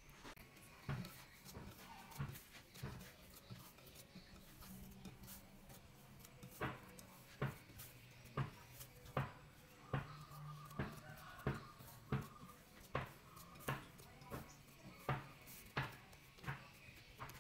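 Glutinous rice-flour dough kneaded by hand in a glass bowl, with a sharp tap or knock against the glass at each press. The taps come about every 0.7 seconds, steadier after the first few seconds.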